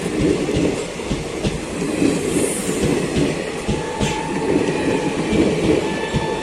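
Coaches of a departing passenger express rolling past at low speed, wheels clacking over rail joints over a steady rumble. A faint thin whine joins in over the second half.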